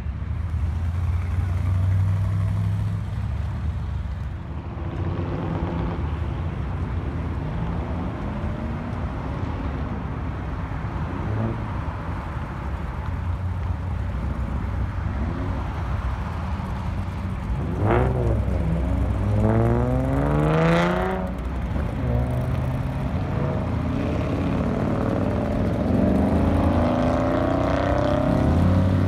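Car engines running at idle, with an engine revving up and pulling away in rising pitch a few times, loudest about two-thirds of the way through.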